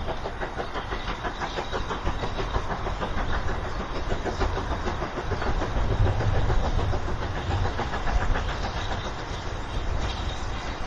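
A train passing, its wheels clattering rapidly and steadily over the rails with a low rumble underneath.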